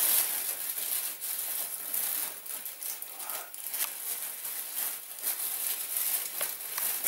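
Thin plastic bag crinkling and rustling as a mug is dug into the granulated sugar inside it, in a run of short irregular crackles.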